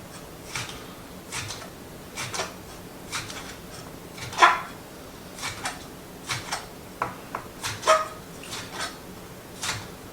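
Kitchen knife slicing a bell pepper into thin strips on a cutting board: a run of short, irregular knife taps, somewhat under two a second, with one louder knock about halfway.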